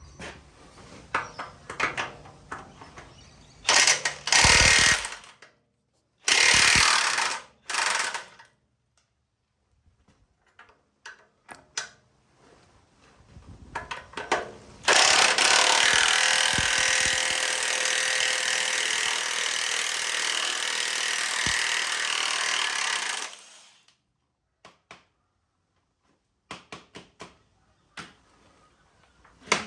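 Power tool, most likely an impact wrench, undoing the tractor's mudguard bolts: three short loud bursts, then one long run of about eight seconds that stops suddenly, with a few tool clicks and knocks between.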